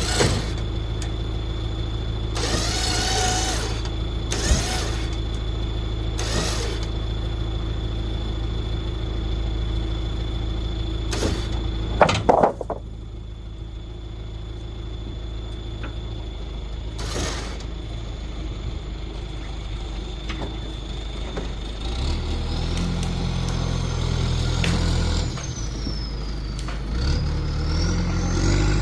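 Truck engine running steadily with a few knocks. About twelve seconds in there is a clunk and the sound drops quieter; near the end the engine revs up in steps, with a whine that rises and falls.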